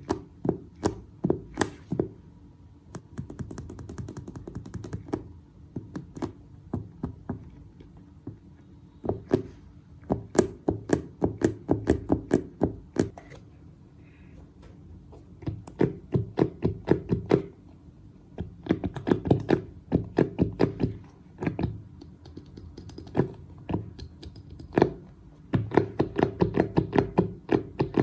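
Runs of quick, soft taps and clicks, several a second, coming in bursts of a second or two with short pauses between.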